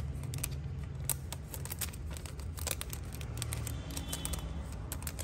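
Irregular small clicks and taps from handling a Zippo lighter and its box, over a steady low hum.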